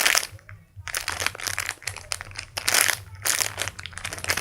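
Crinkling and rustling from hands squeezing and handling a soft foam squishy toy close to the microphone, in irregular surges with a short pause about half a second in.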